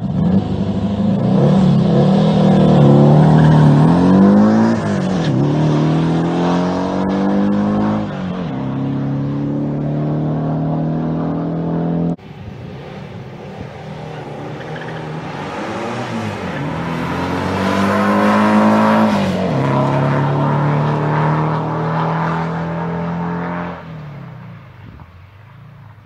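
Turbocharged 1953 Volkswagen split-window bus accelerating hard from a drag-strip launch at full throttle. The engine note climbs in pitch and drops back at each gear change, then holds. The sound breaks off abruptly about halfway through and a second launch follows with the same rising-and-dropping pattern, fading near the end as the bus pulls away down the strip.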